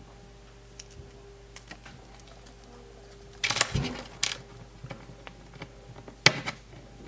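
Small plastic toy pieces being handled and fitted together: scattered light clicks and taps, with a louder clatter about halfway through and a sharp click near the end.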